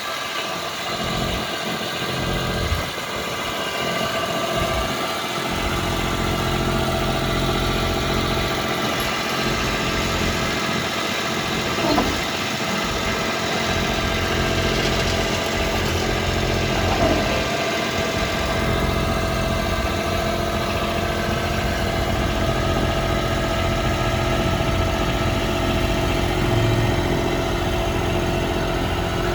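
Engine of a Toro Dingo TX1000 compact tracked loader running steadily. Its pitch briefly shifts about 12 seconds in and again about 17 seconds in, with an occasional light knock.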